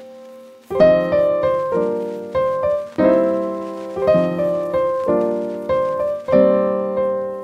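Background solo piano music: single notes and chords struck about every half second, each left to ring and fade.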